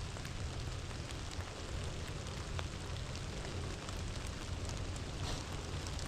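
Steady rain, an even hiss with scattered raindrop ticks and a low rumble underneath.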